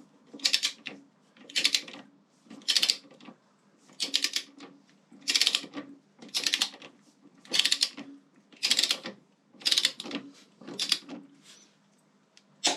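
Ratchet torque wrench cranking a bolt down: short rattling runs of pawl clicks about once a second, one on each back-stroke, as the bolt is brought up to 15 ft-lb.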